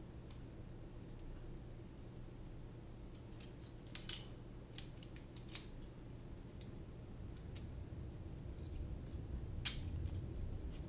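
Light clicks and taps of carbon-fibre drone frame plates, arms and small screws being handled and fitted together, over a steady low hum. The sharpest clicks come about four seconds in and near the end.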